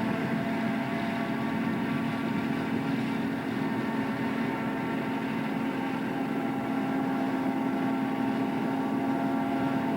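John Deere self-propelled forage harvester running steadily while chopping maize, a constant machine drone with several held tones over it.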